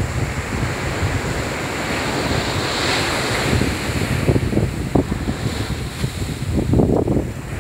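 Ocean surf breaking and washing up a sand beach, a steady hiss that swells as a wave's wash comes in about three seconds in. Wind buffets the microphone in low gusts during the second half.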